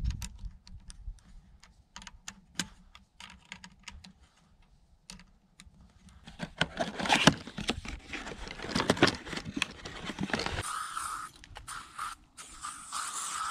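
Scattered small clicks and crinkling rustles of gear being handled. About two-thirds of the way through, an aerosol can of bug spray starts hissing, with a few brief breaks.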